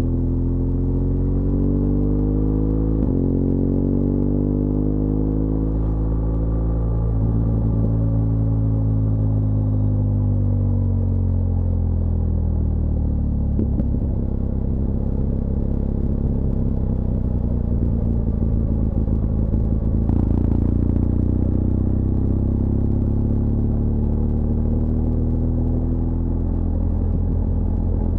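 BMW R1200GS LC Adventure's boxer-twin engine running under way, its note rising and falling several times as the revs change, over a steady low rumble.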